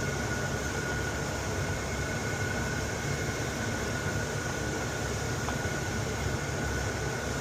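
Genie boom lift engine running steadily at a constant speed, with a thin steady whine over it, after its fuel filters were replaced.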